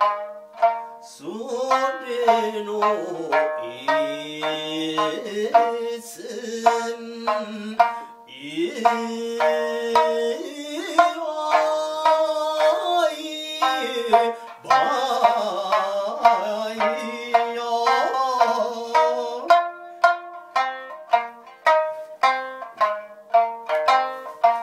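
Okinawan sanshin (three-string snakeskin lute) plucked in a lively run of notes, with a man singing over it in a bending, ornamented folk-style voice. The singing stops after about 19 seconds, leaving the sanshin playing alone near the end.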